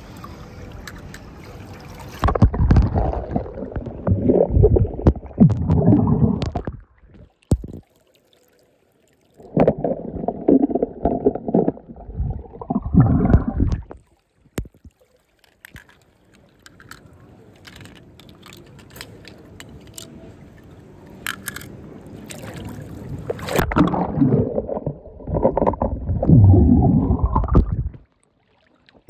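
Pool water sloshing and gurgling right at the microphone in three bursts of a few seconds each, each rising in pitch near its end and cutting off suddenly. Between the bursts, light clicks of toy cars being handled.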